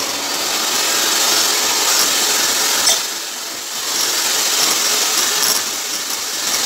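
Electric hand mixer running, its beaters whirring through thick cake batter, with a couple of sharp clicks and a dip in level for about a second near the middle.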